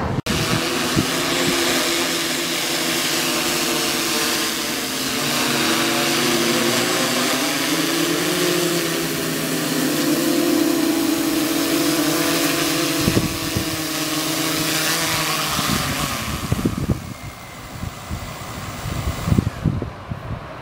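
Quadcopter's electric motors and propellers whining steadily in flight, the pitch wavering a little. After about sixteen seconds the whine drops away as it comes down to land, with a few knocks near the end.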